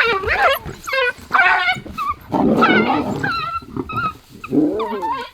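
African wild dog yelping and screaming in distress as lions seize it, a series of high, wavering cries, with a harsh growl in the middle.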